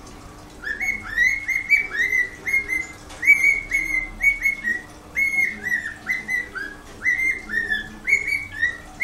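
Whiteface cockatiel singing: a quick run of short whistled notes, many sliding up then holding, in repeated phrases starting about half a second in.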